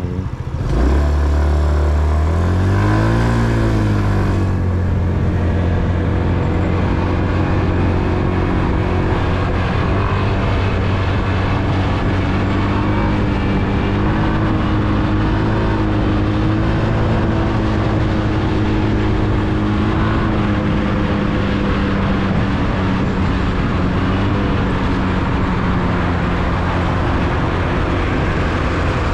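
Motorcycle engine pulling away, its pitch swinging up and down over the first few seconds as it picks up speed, then running at a steady cruising speed for the rest of the time.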